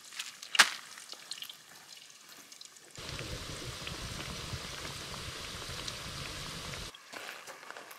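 Chips deep-frying in hot oil in a cast iron pot: a steady bubbling sizzle that starts and stops abruptly in the middle, with a single sharp knock near the start.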